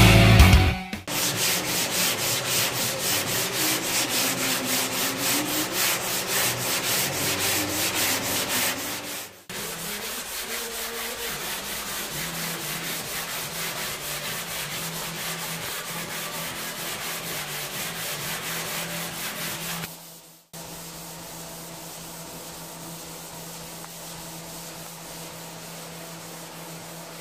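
Sandpaper on a sanding block rubbed back and forth over high-build primer on a car's steel body panels: a fast, even rasp of strokes, block-sanding the primer smooth before the next coat. It comes in three stretches, each quieter than the one before.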